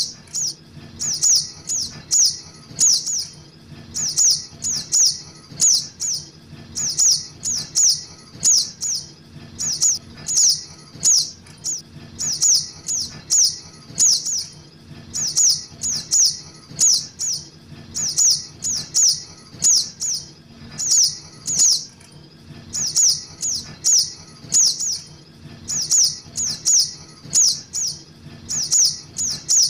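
Juvenile sogok ontong (spiderhunter) calls used as a lure: sharp high chips, each sweeping down in pitch, repeated in quick groups of two to four, with a faint steady low hum underneath.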